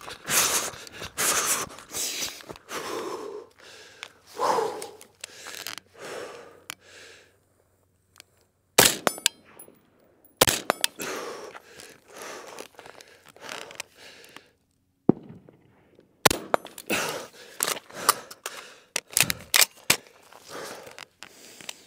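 Running footsteps crunching on gravel, with gear rattling, for the first several seconds. Then an AR-style rifle fires single shots: a spaced string, a short pause, and a faster string near the end.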